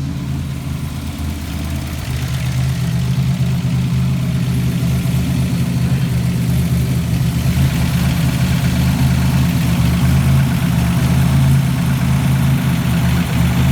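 Buick Grand National's turbocharged 3.8-litre V6 idling steadily, with a slightly lower level for the first couple of seconds before it settles.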